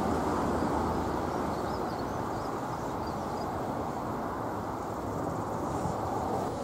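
DFB-class diesel-electric locomotive running past with its train: a steady engine rumble and wheel noise that eases slightly as it goes by.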